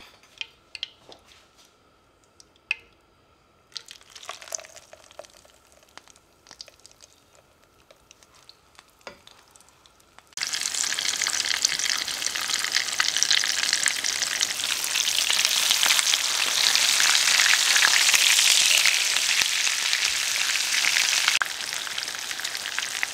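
A few light clicks and knocks, then about ten seconds in a loud sizzle starts suddenly as breaded chicken breasts are seared in hot oil in a frying pan. The sizzle holds steady and eases a little near the end.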